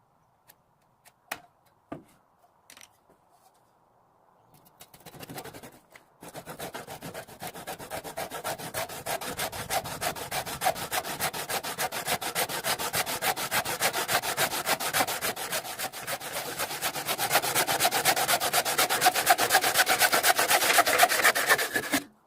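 A few light clicks, then rapid, even back-and-forth rubbing strokes on wood, like hand sanding or rasping. The strokes start a few seconds in, grow steadily louder, and stop abruptly near the end.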